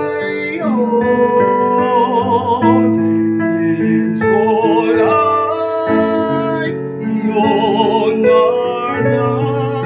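A solo voice singing held notes with a wide vibrato over an instrumental accompaniment.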